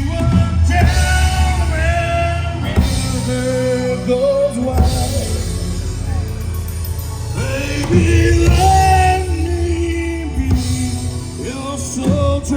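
Rock song with a lead vocalist singing over a full band.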